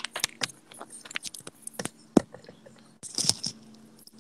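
Wired earbuds being handled and fitted into the ears, with the cable and buds rubbing and knocking close to the microphone: irregular clicks and scrapes, one sharp knock about two seconds in, and a cluster of rubbing near the end.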